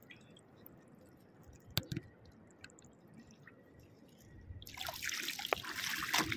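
Shallow seawater over a rocky reef trickling and dripping, faint at first with a single sharp click about two seconds in. Then, from about four and a half seconds in, louder splashing and trickling water.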